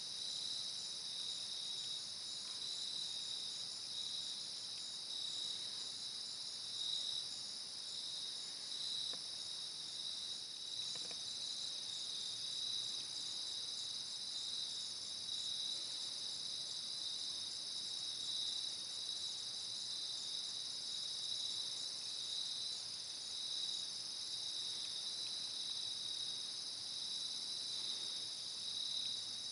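A steady chorus of crickets and other insects, several high-pitched chirring layers with a fast, even pulse.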